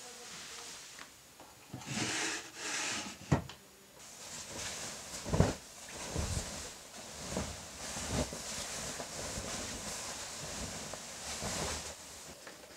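Quilts and bedding being spread out on a floor: fabric rustling and swishing in bursts, with a few soft thumps as they drop into place.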